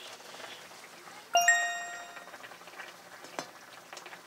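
A single bright metallic ding about a second and a half in, ringing with several clear tones that fade within a second, over quiet kitchen room tone.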